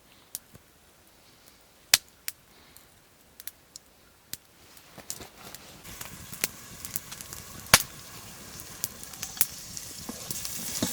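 Campfire kindling of carved feather sticks catching: sharp, scattered crackles and pops. About halfway through, a hiss of flames starts and grows steadily louder as the fire takes hold.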